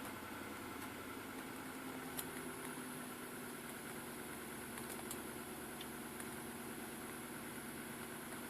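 Nissan Patrol Y62 engine idling steadily from cold at −10 °C. A few faint, irregular clicks sound over the running, which is the cold-start knock the owner is recording.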